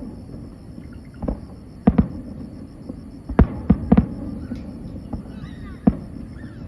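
Fireworks bursting: about six sharp bangs at uneven intervals, three in quick succession around the middle, over a steady low rumble of background noise.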